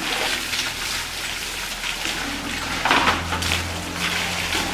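Water running and splashing steadily from a Tullu electric pump's outlet, with a few louder splashes about three seconds in.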